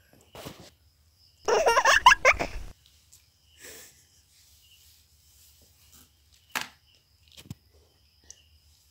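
A person bursting into laughter for about a second, starting about a second and a half in, followed by a few faint clicks and rustles.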